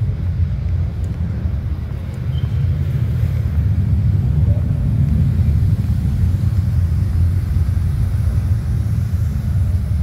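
Steady deep rumble of surging waves from the sound of the wave media-art screen, played loud in a large echoing hall.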